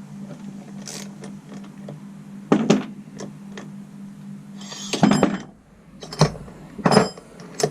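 Metal engine parts and hand tools knocking and clinking on a workbench during a two-stroke engine rebuild: a few separate sharp knocks, the loudest about two and a half, five and seven seconds in. A steady low hum runs underneath.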